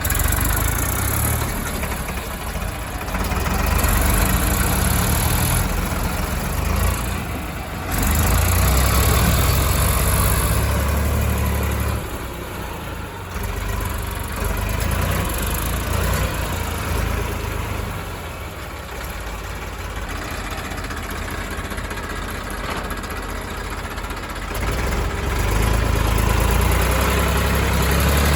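Diesel engines of a backhoe loader and a farm tractor running under heavy load while pulling a tractor stuck in mud, the low rumble swelling and easing several times as they rev up and back off.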